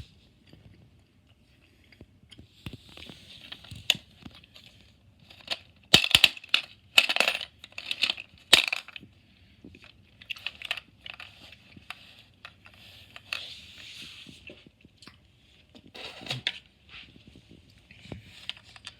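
Coins clinking and dropping into a novelty gumball machine bank, with irregular clicks, knocks and short rattles, the sharpest cluster about six to nine seconds in.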